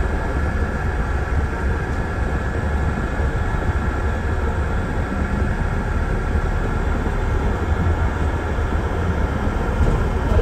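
Steady low drone of a moving double-decker bus, heard from inside on the upper deck: engine and road rumble with a faint steady whine above it.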